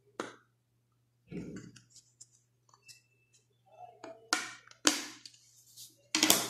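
Plastic clicks and scrapes from a small mobile phone being handled with its back cover off. About five short, sharp sounds come at irregular moments, and the loudest falls near the end.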